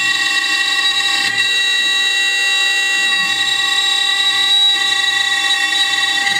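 CNC router spindle running at high speed as a small end mill cuts wood: a steady, high-pitched whine.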